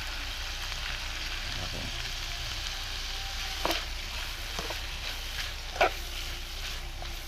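Shrimp, squid and vegetables sizzling steadily in a nonstick wok while being stir-fried with a plastic spatula, with a few sharper clicks of the spatula against the pan, the clearest about three and a half and six seconds in.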